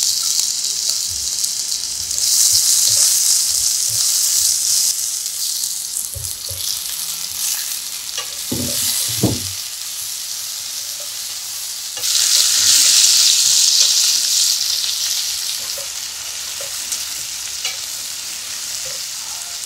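Pineapple chunks, tomato wedges and garlic sizzling in hot oil in a nonstick frying pan as they are lightly stir-fried with a spatula. The sizzle swells louder twice, a couple of seconds in and again about twelve seconds in, and a couple of dull knocks come about halfway through.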